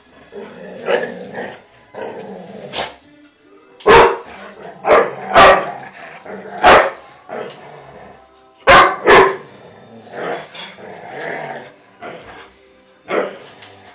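Two dogs barking while they play over a ball: a string of loud, sharp barks, several coming in quick pairs, with quieter barks in between.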